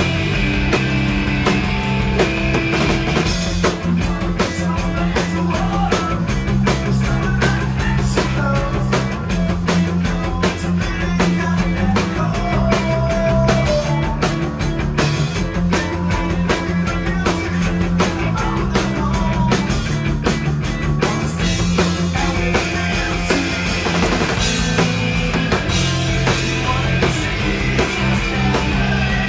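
Live punk rock band playing a full-band song: distorted electric guitars, bass and drum kit, loud and steady throughout.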